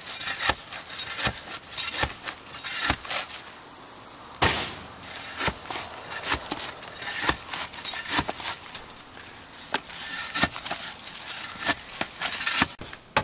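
Roofers tearing off old asphalt shingles: irregular sharp knocks and cracks with short stretches of scraping, a longer scrape about four and a half seconds in.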